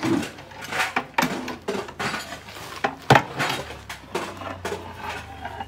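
A long stirring paddle knocking and scraping against a large metal cooking pot as a thick tapioca and beef curry is stirred: irregular sharp clanks, the loudest about three seconds in.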